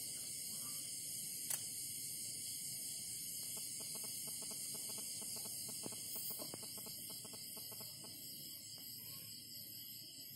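Steady high-pitched chirring of night insects. A rapid run of clicking calls comes in from about three and a half to seven seconds, and there is one sharp click about a second and a half in.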